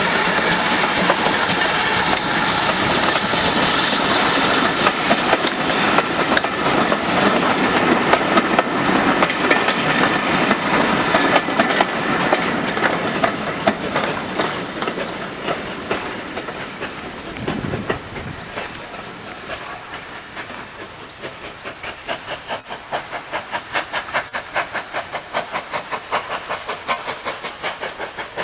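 GWR Large Prairie 2-6-2 tank steam locomotive working a train, its steam hiss and running noise loud at first, then fading through the second half. As it fades, a regular beat of about two or three strikes a second comes to the fore.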